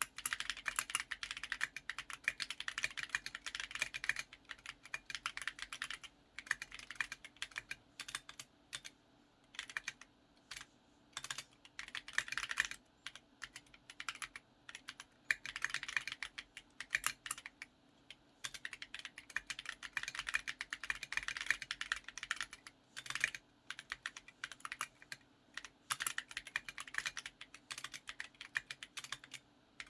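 Typing on a Portico mechanical keyboard with Kinetic Labs Salmon tactile switches and Akko Cupid keycaps: fast runs of keystroke clacks broken by brief pauses.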